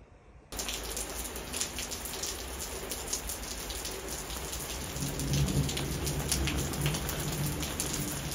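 Steady heavy rain falling, with many separate drops striking and dripping off a roof's eaves; it cuts in suddenly about half a second in and grows somewhat louder past the middle.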